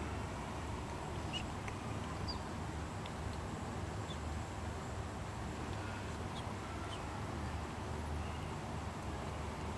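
Steady room noise with a low hum from the electric fans running in a prayer hall, with a few faint, short high chirps scattered through it.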